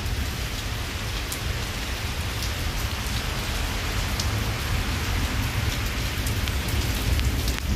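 Torrential monsoon rain pouring onto a waterlogged lawn, a dense steady hiss with scattered sharp ticks, with small hailstones falling in the rain.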